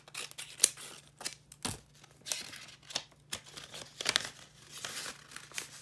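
Scissors snipping through a folded paper packet, then the paper being pulled open and crinkled by hand: a run of short sharp snips and rustles, the loudest about half a second in.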